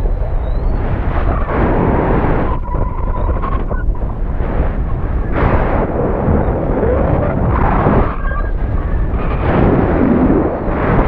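Rushing, buffeting wind over the payload camera's microphone as the payload falls under its parachute after the balloon burst, with a faint whistle coming and going.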